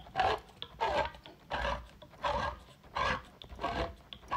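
Hand-crank can opener cutting around the lid of a metal can: a grinding crunch with each turn of the handle, about seven strokes at an even pace, one every two-thirds of a second.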